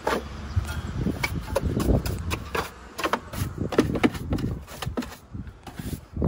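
Hand brush scrubbing and knocking around a car's boot and spare-wheel well, a run of irregular scrapes and sharp taps, over a low rumble of wind on the microphone.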